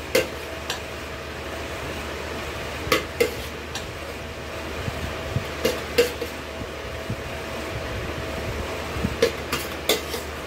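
Steel spoon scraping and clinking against the inside of a stainless steel pressure cooker as cooked rice is scooped out, about ten sharp metallic clinks at irregular intervals over a steady background hum.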